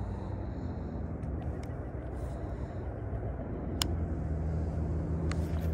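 Low, steady hum of a vehicle engine, louder from about four seconds in, with a few sharp clicks.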